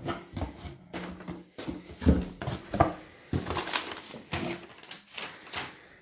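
Crumpled brown packing paper rustling and crinkling as hands pull it out of a cardboard LP mailer box, with the cardboard flaps knocking and scraping; an irregular run of crackles and knocks, loudest about two to three seconds in.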